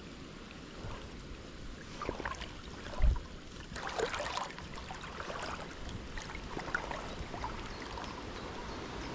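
Gentle river water with the handling noise of a spinning rod and reel as a lure is cast and retrieved: a dull thump about three seconds in, a brief rushing noise a second later, then scattered small clicks.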